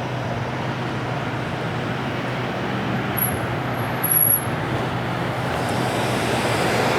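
Steady road traffic and idling vehicle engines with a constant low hum, and a thin high whine for about a second and a half near the middle.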